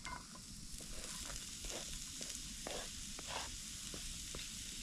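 Chopped apple and onion sizzling as they fry in a pan, a steady hiss with scattered pops and crackles.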